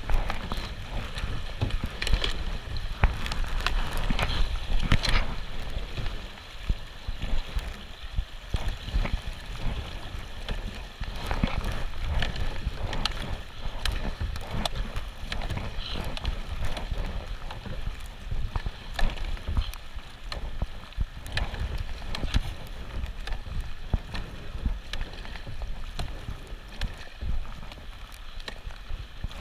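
Kayak paddle strokes splashing and dripping in fast, rippling river current, with rushing water and wind buffeting the camera microphone.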